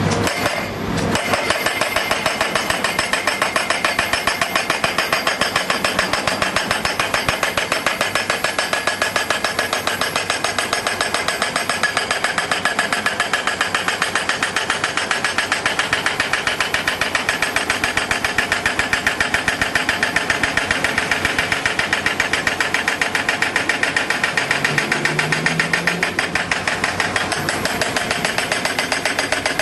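Pile driver hammering a pile: a rapid, steady train of evenly spaced blows with the rig's engine running underneath.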